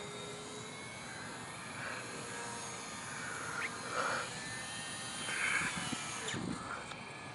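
Whine of a small radio-controlled electric sailplane's motor and propeller as it flies overhead.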